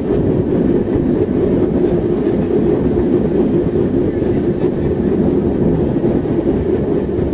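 Tram running on its rails: a steady, loud low rumble of wheels and motor.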